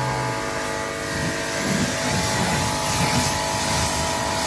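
Electric pressure washer running, a steady motor-pump whine of several constant tones over a hiss.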